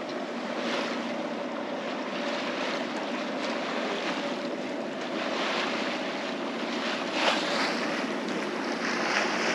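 Sailboat under way in open water: water rushing along the hull and wind buffeting the microphone, over a steady low drone from the auxiliary engine as the boat motorsails. One brief louder rush comes about seven seconds in.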